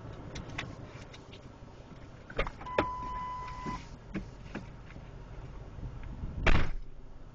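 Scattered light clicks and knocks. A steady electronic beep lasts about a second a little before halfway, and a louder short thump comes near the end.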